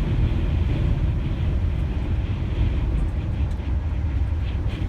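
Steady low rumble of a vehicle travelling at highway speed, road and wind noise in strong winds of 60 mph or more.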